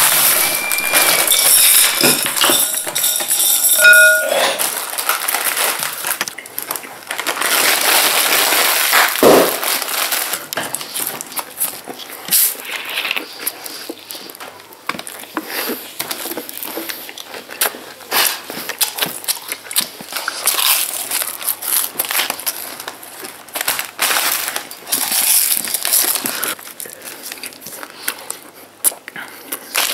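Snack packets crinkling and rustling close up, with chips and sweets being crunched and chewed greedily, in an uneven crackly jumble.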